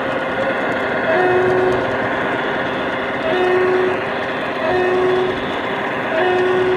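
Large-scale LGB model diesel locomotive's sound module sounding a two-tone horn four times, about every second and a half: a short higher note, then a longer lower one. A steady hum runs beneath it.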